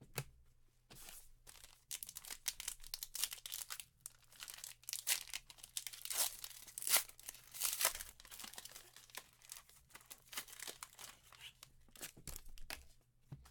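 Plastic packaging being torn and crinkled by hand, in irregular crackling rustles: a trading-card pack being unwrapped.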